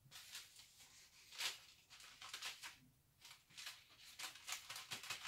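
Faint, scattered soft rustles and pats of hands pressing small pieces of dough onto the edge of a thin rolled-out dough round on baking paper, one a little louder about a second and a half in.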